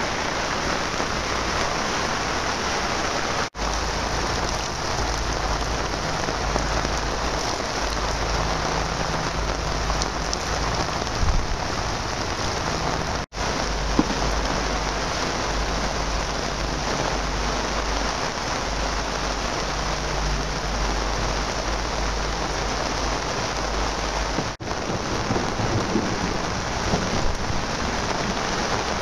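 Steady rain pouring down in a thunderstorm, with a low rumble underneath. The sound cuts out for an instant three times.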